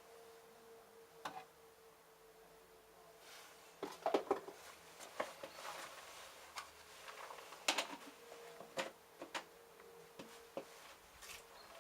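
LG F1222TD direct-drive washing machine early in the prewash of its babycare cycle: a faint steady hum with irregular clicks and knocks starting about four seconds in.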